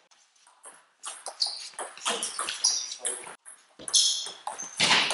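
Table tennis rally: the celluloid ball clicks sharply off the bats and the table, starting about a second in after a hush before the serve. It is mixed with short high squeaks of players' shoes on the sports-hall floor.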